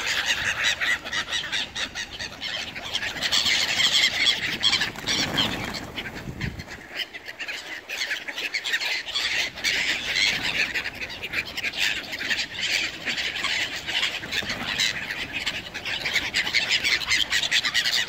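A flock of black-headed gulls calling over one another without pause, with wings flapping, as the birds crowd in to be fed.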